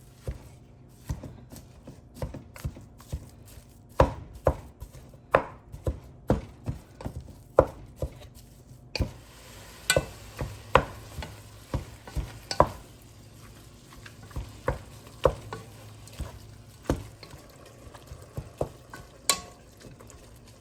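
A utensil chopping and breaking up ground beef as it browns in a pan, knocking sharply against the pan bottom, irregularly one or two times a second. A faint frying sizzle comes in about halfway through.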